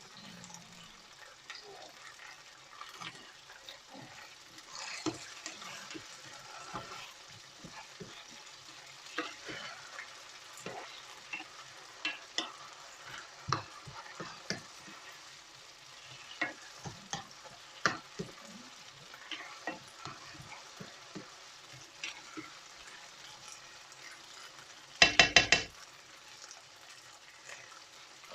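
Chopped onion with garlic and ginger paste frying in oil in a pan, a low steady sizzle, stirred with a utensil that clicks against the pan now and then. Near the end comes a quick run of about five loud knocks, the loudest sound here.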